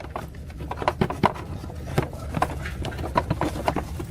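Irregular light clicks and knocks from repair work on a motorbike, over a low steady hum.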